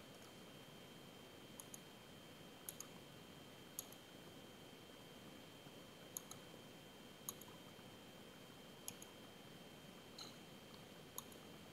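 Faint computer mouse clicks, about ten at irregular intervals, some in quick pairs, over a low steady hiss.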